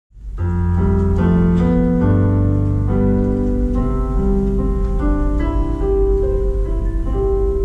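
Electronic keyboard playing a piano-voiced introduction: sustained chords and a slow melody over a held bass, starting about half a second in.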